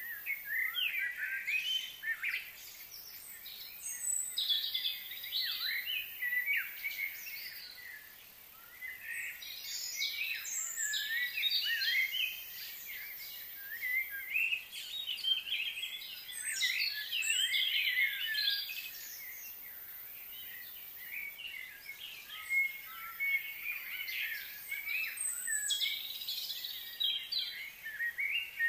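Several birds singing and chirping together in bouts of quick, high notes, with a couple of short lulls.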